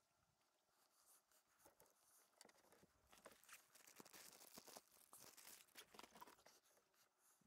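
Near silence: faint rustling and small clicks from hands handling fishing line and rods, busiest from about three to six and a half seconds in.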